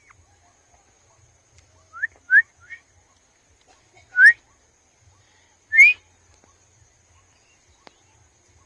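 Small bird chirping: three quick short chirps rising in pitch about two seconds in, then two louder single rising chirps about a second and a half apart.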